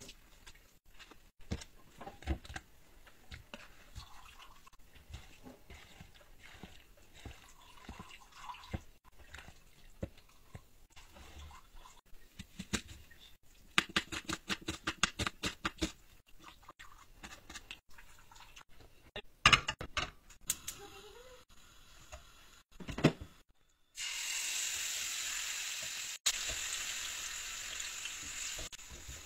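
Knife cutting raw chicken on a plastic cutting board with scattered light taps, then a quick even run of knife strikes chopping an onion. After a few sharp knocks, marinated chicken starts sizzling steadily in hot ghee in a non-stick frying pan at medium-high heat.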